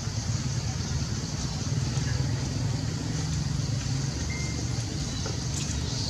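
Steady low rumble of an idling engine, under a faint high hiss.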